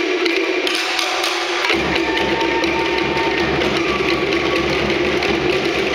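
Tahitian drumming ensemble playing a fast, rolling beat on wooden to'ere slit log drums, with a deep drum joining underneath a little under two seconds in.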